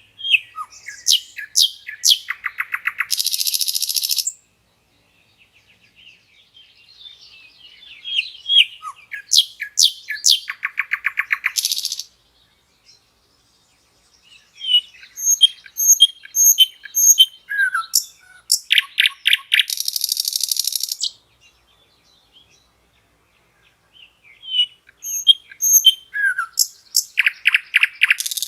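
Common nightingale singing four separate song phrases with short pauses between them. Each phrase runs from whistled and chirped notes into a fast rattle of repeated notes and ends in a harsh, buzzy flourish.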